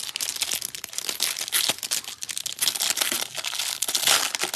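Trading-card hanger box packaging being ripped open by hand: a dense, irregular crinkling and crackling of wrapper and cardboard.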